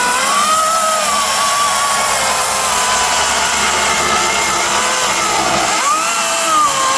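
Cordless electric chainsaw running and cutting a log, its motor whine steady at first, then sagging in pitch under load and recovering about five to six seconds in.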